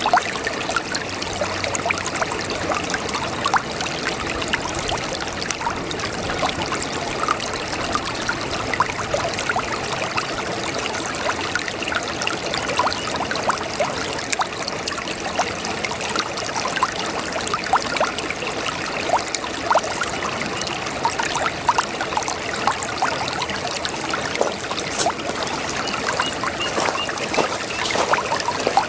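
A small brook babbling steadily: a continuous trickle of running water with many fine splashes.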